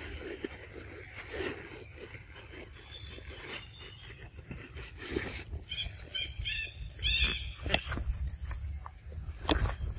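Long-tailed macaque biting and chewing a cucumber, with sharp crunching bites near the end. About six seconds in comes a quick run of about six short high chirps from an animal.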